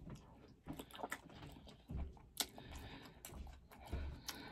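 Close-up chewing of a mouthful of sauce-coated seafood-boil food: irregular wet mouth clicks and smacks, with a few dull low thuds.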